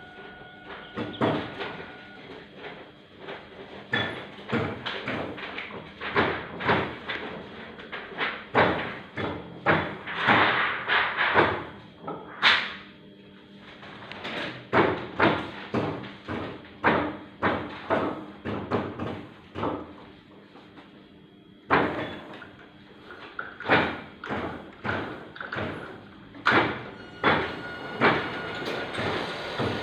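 Oliver offset printing press running, its mechanism clacking and thumping in a fast repeating rhythm, with two brief lulls where the knocking drops away.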